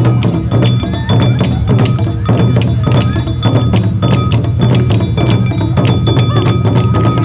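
Live Awa Odori festival music: taiko drums and clanging metal kane gongs struck in a brisk, steady beat, with held melody notes above.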